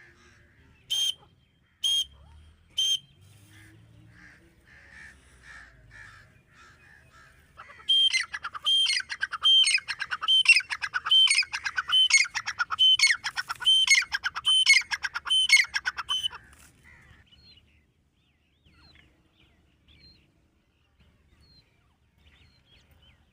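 Grey francolin calling: three sharp shrill calls in the first few seconds, softer calls after them, then a loud run of repeated shrill notes, about two a second, that fades to faint chirps near the end.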